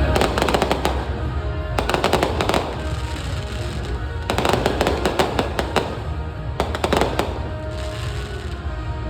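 Aerial fireworks going off in four rapid crackling volleys, each a quick string of reports lasting about a second, over music playing underneath.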